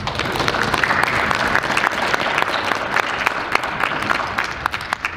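A small audience applauding: many hands clapping, starting suddenly and thinning out near the end.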